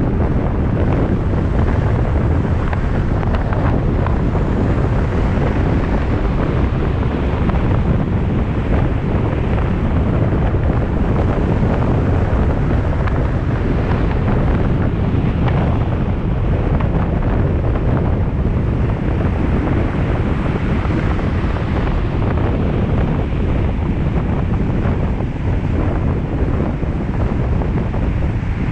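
Steady road and wind noise of a car driving at speed, a constant rushing sound strongest in the low range, with wind buffeting the microphone.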